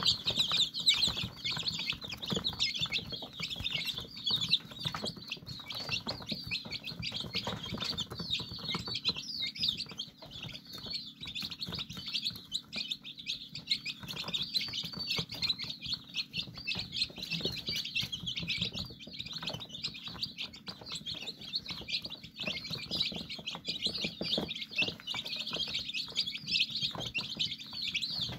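A brood of five-day-old chicks peeping constantly, many high, short cheeps overlapping without a break.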